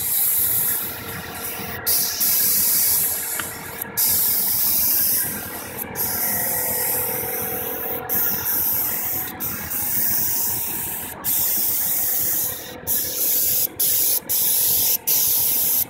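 Air spray gun hissing as it sprays latex leather colorant onto a car seat. It goes in long bursts broken by short pauses every one to two seconds, with a steady hum underneath.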